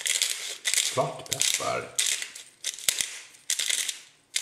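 Hand-twisted pepper mill grinding black peppercorns, in a series of short crunching bursts, one for each twist of the mill.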